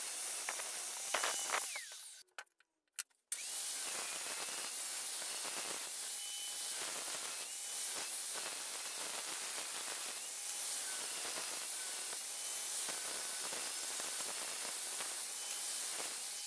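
Angle grinder with a cut-off disc cutting through an old steel saw blade, a steady hissing grind with a thin whine over it. The sound falls away about two seconds in and returns a second later with a rising whine as the disc spins back up.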